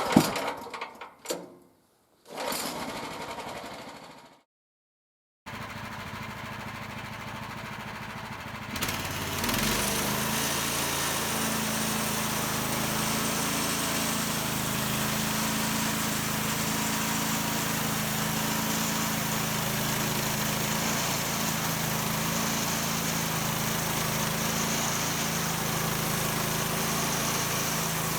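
A few sharp knocks and clatters, then the bandsaw mill's engine running steadily, getting louder about nine seconds in and holding level from there.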